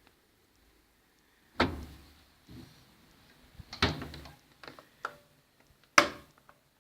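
Electrolux washing machine in turbo agitation, knocking: three sharp clunks about two seconds apart, the first two each followed by a short low rumble, with fainter knocks in between.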